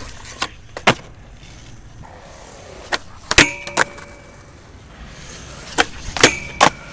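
Skateboard tricks: a series of sharp board pops and wheel landings on concrete over the rumble of rolling wheels, with the trucks striking a steel rail twice, about three seconds apart, each strike leaving the rail ringing.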